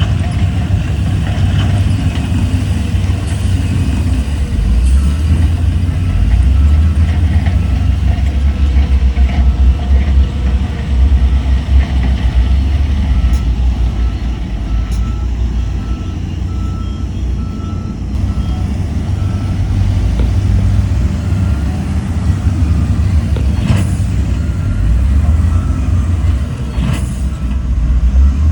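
Heavy diesel earthmoving machinery running with a deep, steady engine rumble. A reversing alarm beeps evenly for several seconds about halfway through, and two sharp knocks come near the end.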